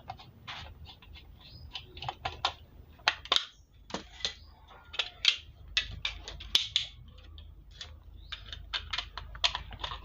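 Irregular clicks and taps of a small screwdriver unscrewing the back-case screws of a plastic digital multimeter, mixed with knocks from the plastic case being handled.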